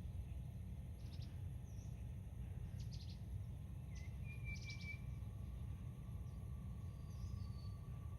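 Faint, brief bird chirps, a few short high calls and one short whistled note, over a steady low rumble.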